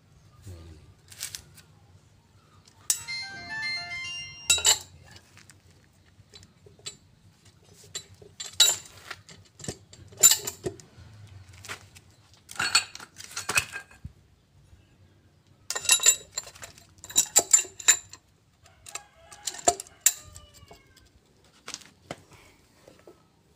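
Metal-on-metal clicks, knocks and clanks as a truck differential carrier with its ring gear and bearings is worked down into the differential housing. There are irregular sharp taps throughout. A short jingle-like melody plays once, about three seconds in.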